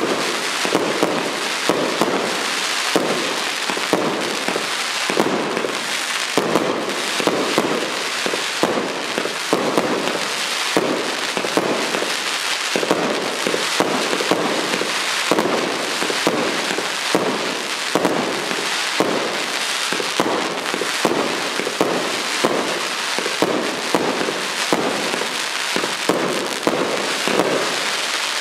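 Consumer firework (P7887 'Pacific Ocean') firing: a dense, continuous run of pops and crackling bangs, many per second, holding steady throughout.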